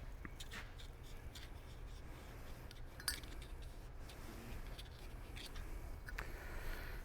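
Faint light clicks and scrapes of copper pipe and fitting being handled and fluxed, with one sharper click about three seconds in, over a low steady hum.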